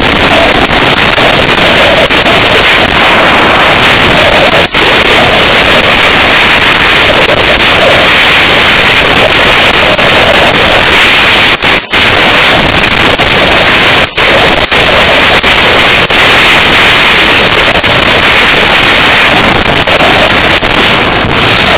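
Loud, distorted wind rush buffeting an action camera's microphone on a motorcycle moving at road speed, a steady hiss with a few brief dropouts.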